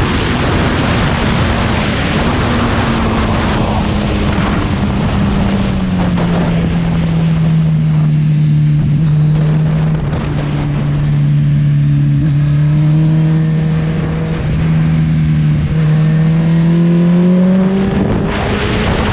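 Motorcycle engine running at a held pitch. The pitch drops after about six seconds and climbs again near the end, under a loud rushing noise.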